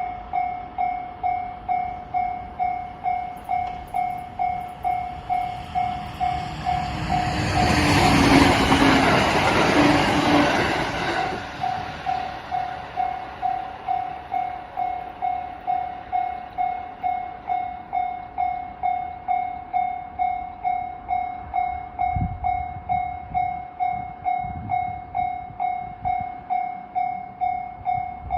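Japanese railroad crossing warning bell ringing steadily, about two strokes a second, the familiar "kan-kan" crossing signal. A train passes over the crossing between about 7 and 11 seconds in, the loudest sound, while the bell keeps ringing.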